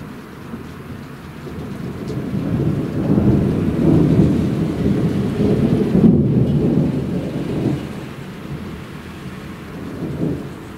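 Rolling thunder: a low rumble that builds about two seconds in, is loudest midway and dies away, with a smaller swell near the end.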